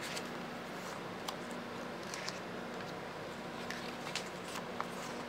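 Pages of a glossy album photo book being turned by hand: a few brief, faint paper flicks and rustles over a steady background hum.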